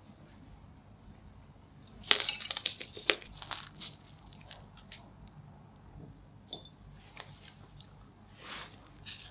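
Crisp toasted-marshmallow top of a freshly baked brownie crunching and crackling as it is broken apart by hand: a dense burst of crackles about two seconds in, then scattered smaller ones. A light ceramic clink about six and a half seconds in.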